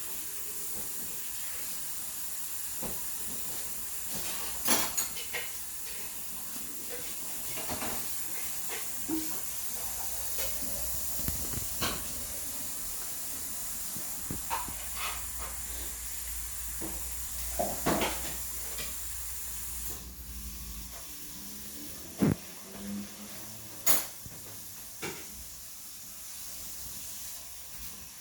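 Hands working slime: scattered short clicks and pops over a steady hiss, with a low hum that stops about two-thirds of the way through.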